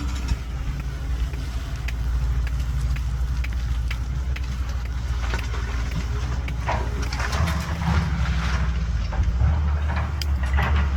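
Caterpillar 320BL excavator's diesel engine running steadily, its revs stepping up about seven seconds in as it works under load, with scattered clanks and rattles and brief rushes of noise from the digging and loading.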